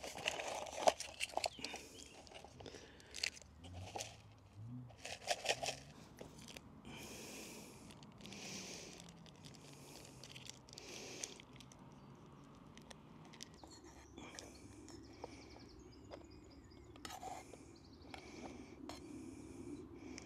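Camp cooking handling noises: a quick run of clicks and knocks from cookware, then crinkling and rustling, with a low steady hum coming in over the second half.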